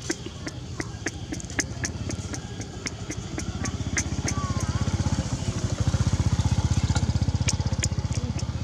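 A small engine running nearby with a fast, even pulse, growing louder through the middle and easing a little near the end, as if passing close by. Sharp irregular clicks sound over it throughout.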